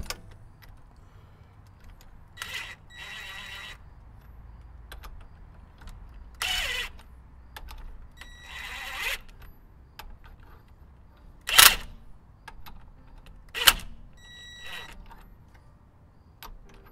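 Ryobi cordless impact wrench run in several short bursts, turning the nut on a long bolt that draws a new pivot bushing into the axle. The motor winds down after each burst. Two sharp metallic knocks, the loudest sounds, come about two-thirds of the way through.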